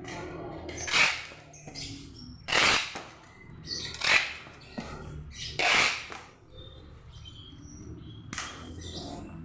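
Packaging materials being handled during the packing of a rifle parcel: five short, sharp rasps, irregularly spaced about one to two seconds apart.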